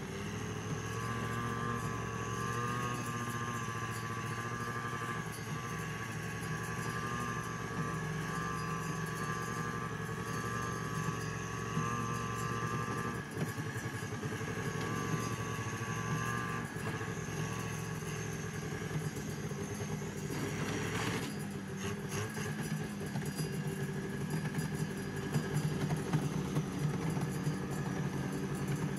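1976 Yamaha GS340 snowmobile's two-stroke engine running at trail speed while riding, its note wavering slightly. There is a short burst of noise about two-thirds of the way through, after which the engine sounds a little rougher and louder.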